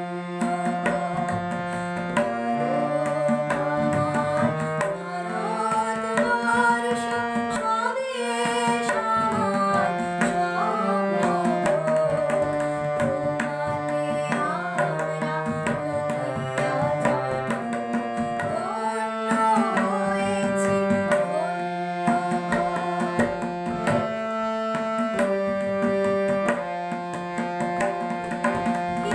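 Tabla played in a running rhythm, accompanying a sung melody over sustained harmonium chords.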